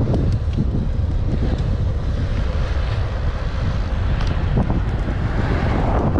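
Wind buffeting a helmet-mounted camera's microphone on a moving bicycle: a steady low rumble and rush, swelling louder about five seconds in.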